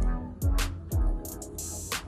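Background music with a beat: deep, falling kick-drum thumps about twice a second and short, sharp high hits.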